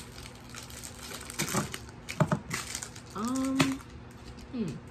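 Faint rustling of clear plastic bags and a couple of sharp clicks from small ring-light parts being handled, then a woman's wordless vocal sound about three seconds in, a rising hum held briefly, and a short falling one near the end.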